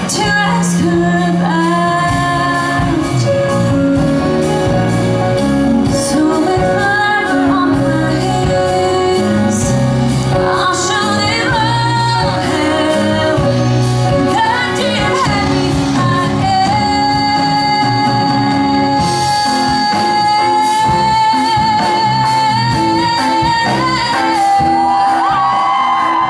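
A woman sings a musical-theatre song into a microphone, backed by a live band. In the second half she holds one long note for several seconds.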